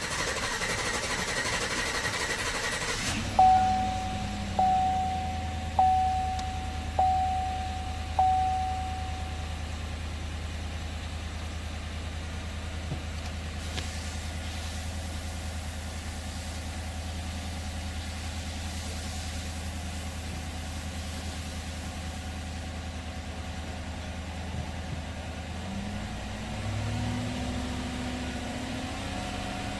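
Chevrolet Silverado 5.3 L V8 idling steadily just after starting. A few seconds in, a dashboard warning chime rings five times, about a second apart.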